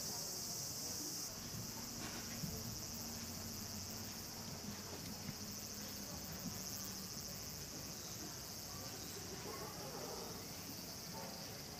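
A steady, high-pitched insect chorus, a little quieter from about a second in.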